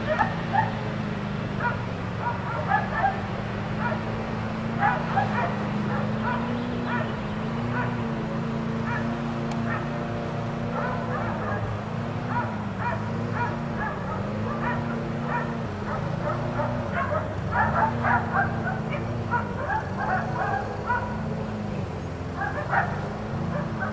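Dogs barking and yipping over and over, in irregular bouts, with clusters of barks about 5 s in and again from about 17 to 21 s. A steady low hum runs underneath, wavering in pitch roughly once a second.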